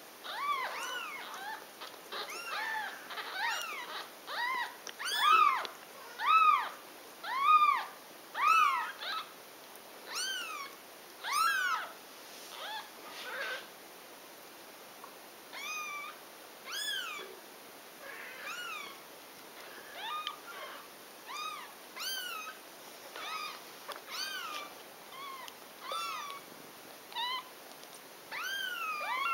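Newborn kitten mewing over and over: short, high-pitched cries that rise and fall in pitch, coming several a second and loudest in the first ten seconds or so, then sparser and fainter.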